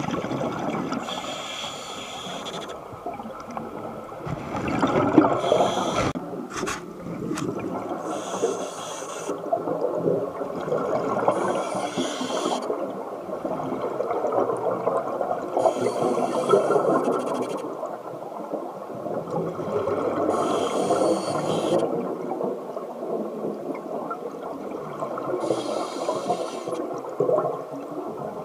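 Scuba diver breathing through a regulator underwater: a hissing inhalation through the demand valve about every four to five seconds, with exhaled bubbles gurgling and rumbling in between. A few sharp clicks about six seconds in.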